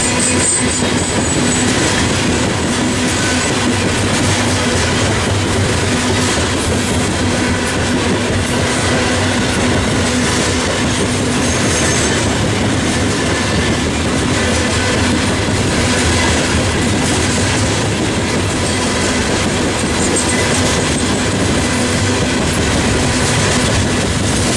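Norfolk Southern coal train's hopper cars rolling past close by: a steady rumble and clickety-clack of steel wheels on the rails, with a thin high wheel squeal in the first couple of seconds.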